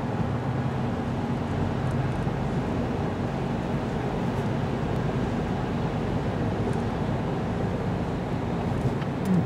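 Steady road noise inside a moving car's cabin on a wet road: tyre hiss over a low engine hum.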